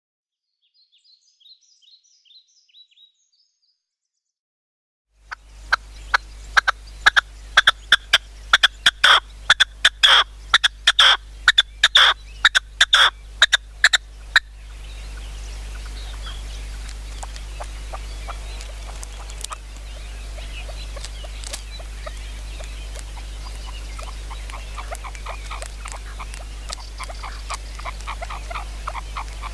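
Red-legged partridge calling: a long, fast series of loud, sharp repeated notes from about five seconds in to about fourteen, then fainter calls continuing over a steady low hum.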